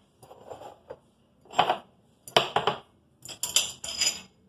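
Glasses and dishes clinking and rattling as they are lifted out of a dish drainer, in about five short bursts of clatter with brief pauses between them.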